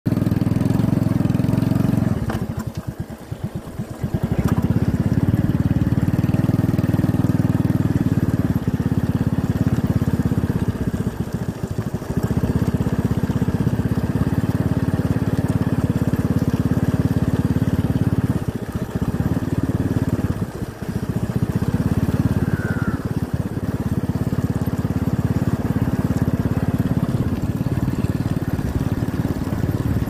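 Wind buffeting the microphone of a camera on a moving vehicle: a heavy, steady low rumble that drops away for a moment about two seconds in and a few more times later, with the vehicle's running and road noise beneath.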